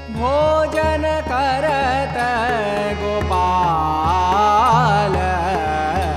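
Indian devotional song: a long, ornamented melodic line with wavering, bending pitch over low drum strokes and a steady drone.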